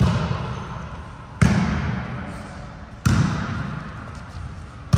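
A volleyball being struck in a rally: four sharp smacks roughly a second and a half apart, each ringing out in the echo of a large gymnasium.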